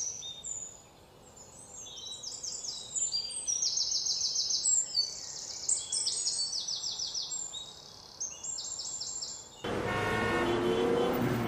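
Many birds chirping and trilling together in rapid, overlapping high calls. About ten seconds in it cuts abruptly to street traffic with a vehicle horn tooting.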